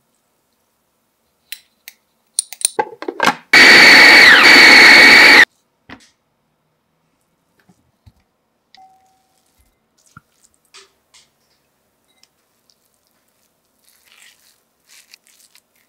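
Food processor motor running for about two seconds, chopping a spinach, scallion and olive filling, with a high whine that dips briefly in pitch partway through. A few clicks come just before it starts, and faint taps and scrapes follow.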